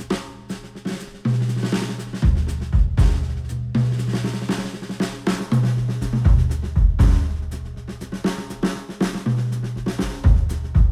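Instrumental music with a full drum kit (kick, snare, hi-hat) keeping a steady beat over held bass notes, played through a Sennheiser open-back headphone and picked up by microphones at the earcup.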